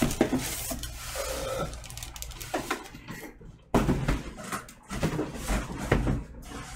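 A boxed turntable being pulled out of its cardboard box: styrofoam end caps rubbing and squeaking against cardboard, with rustling plastic bag and knocks. The handling turns suddenly louder just past halfway.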